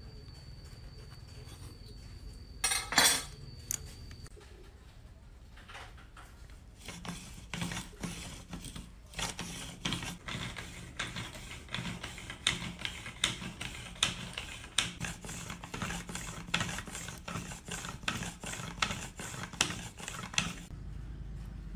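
Hand drill boring a small hole into a wooden board: the bit cuts with a rapid, uneven scraping and clicking that starts about seven seconds in and runs for some thirteen seconds. A single loud clatter comes about three seconds in.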